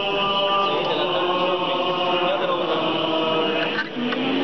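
Voices chanting an Orthodox church hymn, several held notes sung together in long, drawn-out phrases, with a short break near the end.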